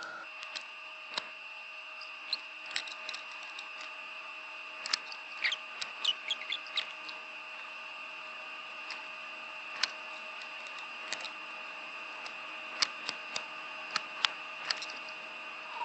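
Hands-on wiring and soldering at guitar potentiometer lugs: scattered small clicks and a run of brief squeaky crackles about five to seven seconds in, over a steady high-pitched electrical whine.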